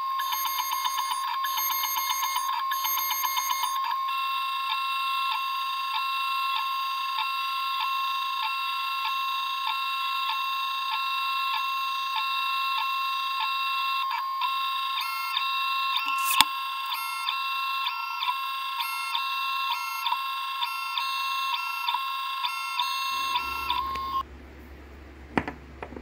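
Langmuir MR-1 CNC spindle with a 3/8-inch three-flute endmill milling aluminium: a loud, steady, high-pitched whine with several overtones. In the second half the whine breaks off and resumes several times, with one sharp tick about 16 seconds in. The whine stops near the end, followed by a couple of sharp clicks.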